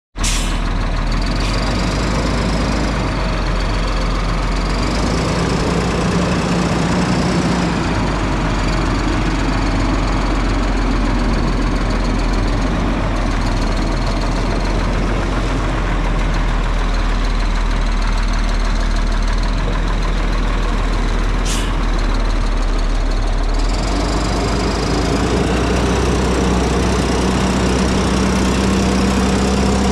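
Peterbilt 340 dump truck's diesel engine idling steadily.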